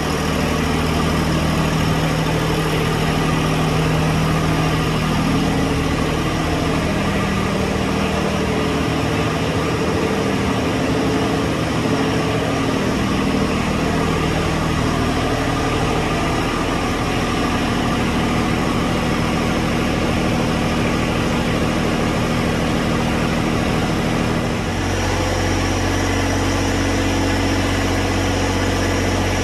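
John Deere 1023E compact tractor's three-cylinder diesel engine running steadily at idle, its note changing abruptly near the end.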